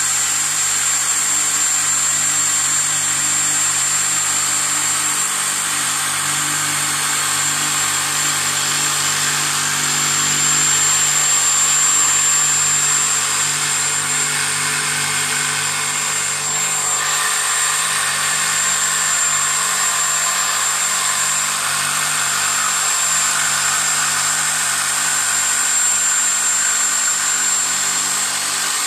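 Corded electric jigsaw running steadily as its blade cuts along a curve through a laminate-faced chipboard kitchen worktop, with a constant high whine over the sawing.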